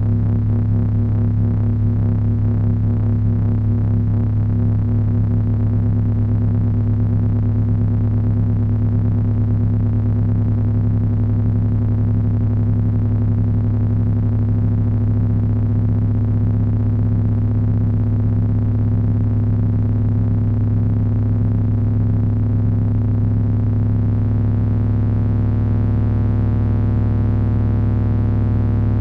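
Electronic drone noise from three Frequency Analyzer v1 units controlled by an HP 200C audio oscillator: a steady, dense low drone of many stacked tones, with a fast flutter in its middle tones.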